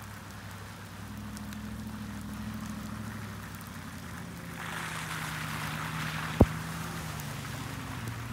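2017 Ram Rebel's 5.7-litre Hemi V8 running steadily at low speed as the pickup creeps along a muddy trail. From about halfway in, its tyres rush through muddy water. One short, sharp thump comes a little later.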